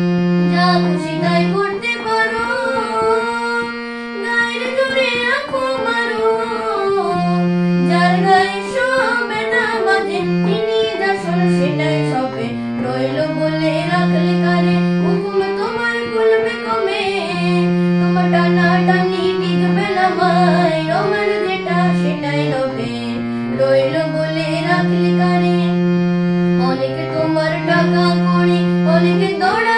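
A boy singing a Bengali swadeshi song while accompanying himself on a harmonium. The harmonium holds steady notes under his wavering vocal line.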